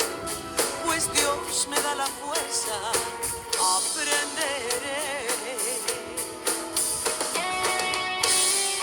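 Background song with guitar and a steady drum beat, under a wavering melody line with wide vibrato.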